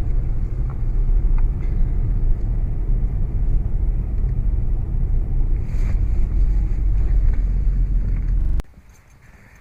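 Wind buffeting the camera microphone: a loud, uneven low rumble that cuts off suddenly near the end.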